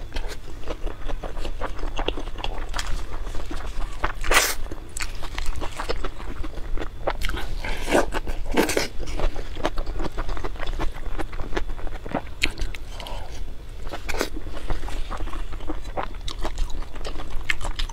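Close-miked mukbang eating: a person chewing spoonfuls of rice and grilled eel with wet mouth smacks and crunches. Louder bites come about four seconds in and again around eight to nine seconds.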